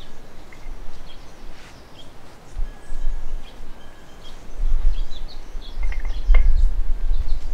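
Small birds chirping in short, scattered notes, with a brief whistled tone, over a low rumble that grows louder from about halfway through; a single sharp click comes near the end.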